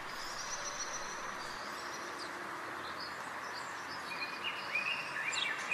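Common blackbird song, faint over a steady hiss, with a few short whistled phrases near the end.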